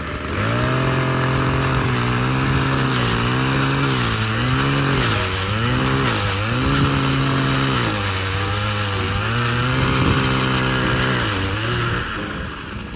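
Powered ice auger's small engine running hard as the bit bores down through lake ice. Its pitch sags and recovers over and over as the bit bites under load. It stops about a second before the end.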